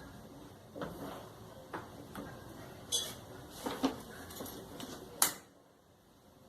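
Scattered clicks and knocks of tools and parts being handled while working on a clothes dryer, about seven irregular hits with the sharpest one near the end.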